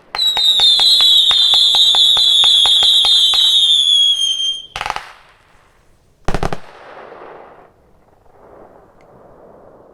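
Consumer fireworks cake, a 100-shot 0.8-inch battery, firing its finale: a rapid string of shots, about four or five a second, under a loud whistle that falls slightly in pitch for about four and a half seconds. Then two loud bangs about a second and a half apart, and a fading crackle.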